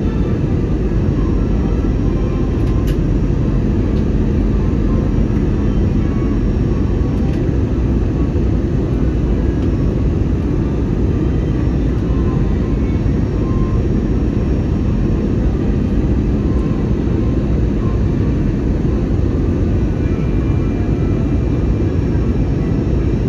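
Steady low roar of airliner cabin noise, engines and rushing air heard from inside the passenger cabin, as the plane descends on approach to land.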